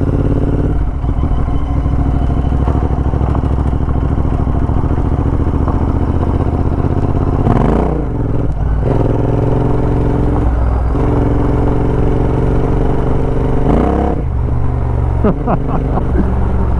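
Royal Enfield Interceptor fitted with an 865cc big-bore kit, a parallel twin with high-flow headers and mufflers, running under way on the road. The engine note dips and changes about eight seconds in as it is shifted from second to third, and dips briefly again about fourteen seconds in.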